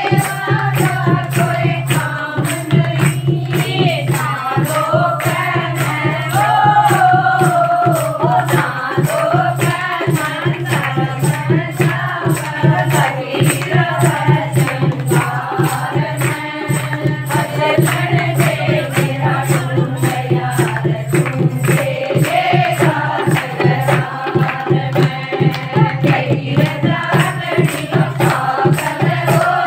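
Devotional Hindi bhajan: women's voices singing over a quick, steady percussion beat with tambourine-like jingles.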